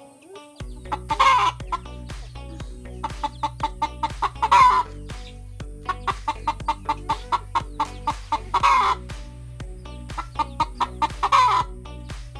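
Ayam kampung hen cackling before laying an egg: runs of short clucks, about three a second, broken four times by a loud, drawn-out squawk.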